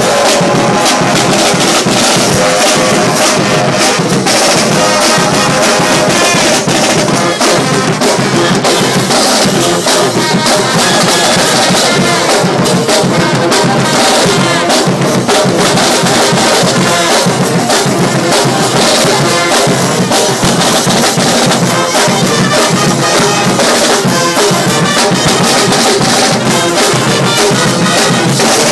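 Street brass band playing loudly: trumpets and trombones over drums keeping a steady beat.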